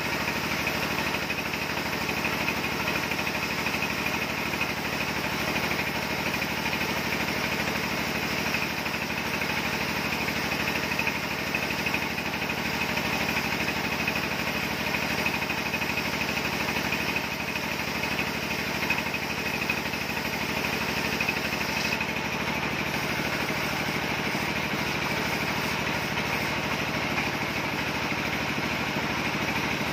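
Horizontal band sawmill running steadily as its blade rips lengthwise through a log of red timber: a continuous machine hum with a high, even whine.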